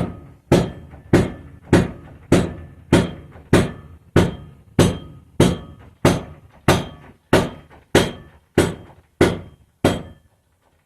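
Steady series of mallet blows on a car's exhaust, about seventeen evenly spaced strikes at roughly one and a half a second, each with a brief metallic ring, stopping near the end. The blows tap the loosened exhaust around in its clamps to take a twist out of it.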